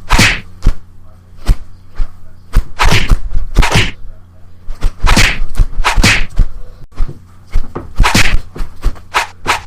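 A quick, irregular string of sharp clicks and short swishing whacks, a few each second, over a faint steady low hum.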